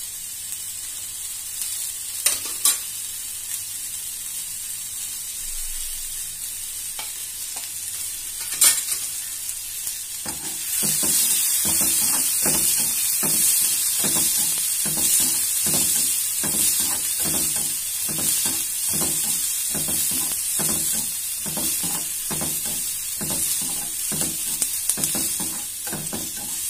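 Sliced onions, green chillies and curry leaves sizzling in oil in a kadai. A few sharp taps come in the first nine seconds. From about ten seconds in, the sizzle grows louder and a spatula stirs and scrapes the pan in regular strokes, about two a second.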